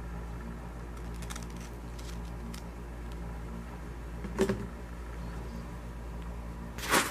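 Steady low hum, with a short knock about four seconds in and a louder, sharper knock near the end.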